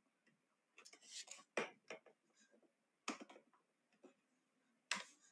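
Near silence broken by a handful of faint, short clicks and taps scattered through it.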